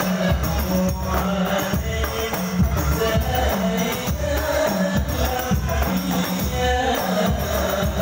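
Sholawat devotional singing: a lead voice over a microphone with other voices joining, over a group of rebana frame drums beating a steady rhythm.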